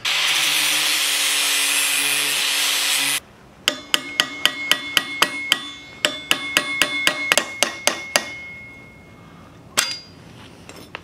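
A power tool runs steadily for about three seconds and cuts off abruptly. Then a hammer strikes steel in a rapid run of about twenty ringing metallic taps, tapping the forged spearhead's tang into a wooden spear shaft, with one more tap near the end.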